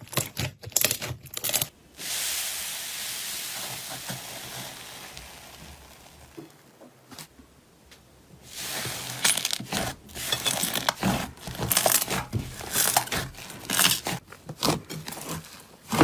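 Slime being handled, crackling and popping in quick sharp bursts. About two seconds in, the crackling gives way to a steady hiss that slowly fades out, then dense crackling and popping starts again.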